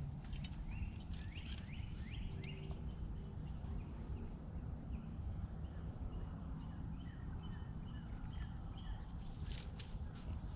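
Birds chirping: a quick series of short rising calls, then a string of brief, evenly pitched notes, over a steady low outdoor rumble.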